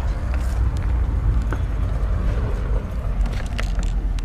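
Steady low rumble of wind and movement on a body-worn action camera's microphone, with scattered short clicks and scrapes of footsteps on a tiled floor strewn with debris.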